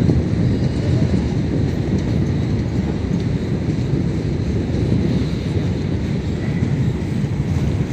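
Train running on the rails, a steady heavy rumble of wheels and wagons.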